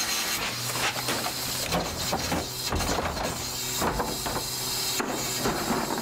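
A plastic trash cart being dumped by the garbage truck's cart tipper into the rear hopper: a series of knocks and bangs as the cart shakes out its load and is lowered back. Under it runs the steady hum of the 1995 Ford L8000 truck's idling engine.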